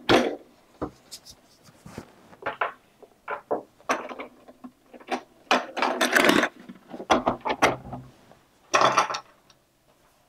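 Hard plastic housing of an Aiper Seagull SE robotic pool cleaner being handled and turned over on a wooden table: a series of knocks and clicks with short scraping stretches.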